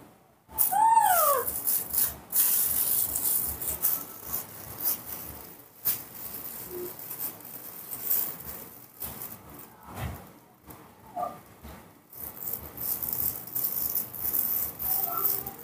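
A baby monkey gives one short high call, rising then falling in pitch, about half a second in. After it comes crinkling and rustling of a thin plastic bag, which picks up again near the end as the monkey handles the plastic. A couple of fainter small calls come later.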